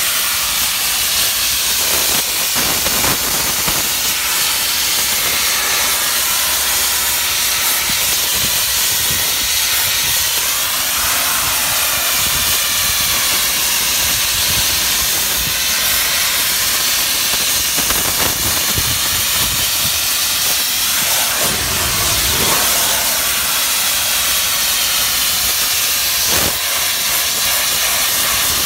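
DOFF superheated steam cleaner lance jetting steam onto brickwork: a loud, steady hiss.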